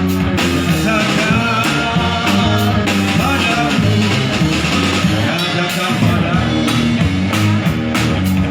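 Live rock band playing a song, with a steady drum beat, bass and guitar, and a wavering lead melody through the middle.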